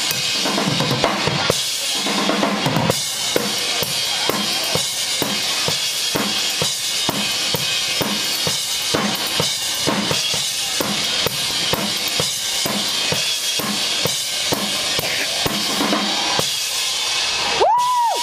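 Rock drum kit played during a soundcheck: a steady beat of bass drum and snare hits under cymbal wash. Near the end the drumming stops and a high held tone is heard.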